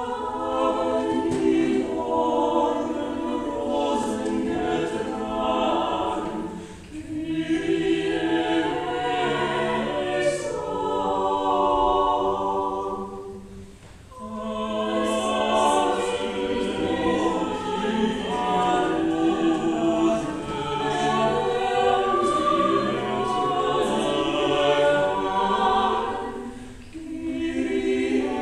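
Vocal quartet of soprano, mezzo-soprano, tenor and bass singing a classical oratorio quartet in long sustained phrases. There are brief breaks between phrases about a quarter of the way in, halfway through and near the end.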